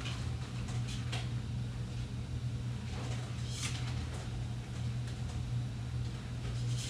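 Vertical blind vanes clicking and rattling now and then, with a short sliding rustle between three and four seconds in, as they are handled and adjusted. Under them runs a steady low hum.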